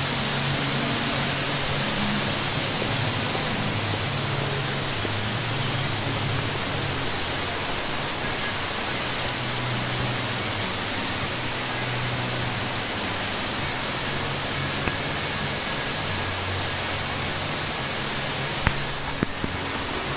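Steady hiss of splashing water from an indoor fountain, with a faint murmur of voices underneath and a few sharp clicks near the end.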